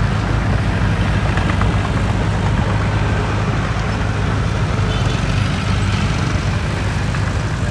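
Heavy diesel earthmoving machinery running: a steady low engine tone with mechanical noise over it.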